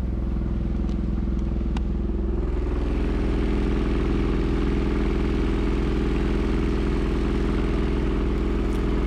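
Two-cylinder outboard motor running steadily at low power on only one cylinder, one cylinder having quit; the owner hopes for something simple like a bad spark plug. Its note shifts slightly about two and a half seconds in.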